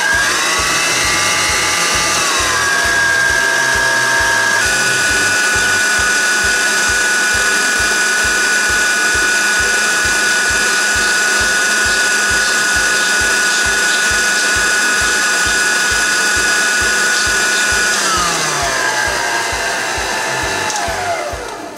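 Electric stand mixer motor whining as its wire whisk whips cream. The pitch rises as it speeds up over the first few seconds, steps up once more and holds steady, then drops as the mixer winds down near the end.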